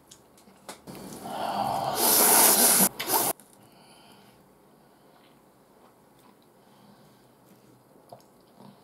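A person slurping ramen noodles, a loud wet slurp that builds over about two seconds and cuts off sharply, followed by faint chewing sounds.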